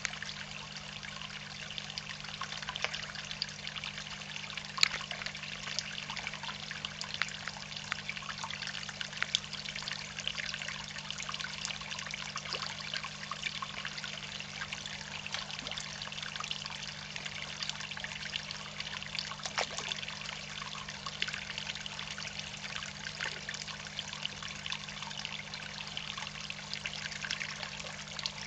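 Water trickling and splashing into a garden koi pond, a steady patter of small droplets over a constant low hum.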